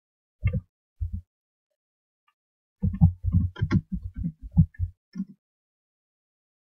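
Keystrokes on a computer keyboard: two single taps, then a quick run of about a dozen dull taps lasting a little over two seconds.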